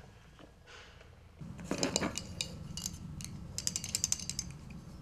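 Small antique brass fishing reel being handled and turned by hand: metallic clicking and rattling that starts about a second and a half in, with a quick run of clicks near the end.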